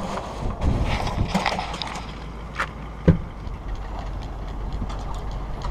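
A boat on the water with a steady low rumble. Scattered knocks and clicks are heard, and a sharp thump comes about three seconds in.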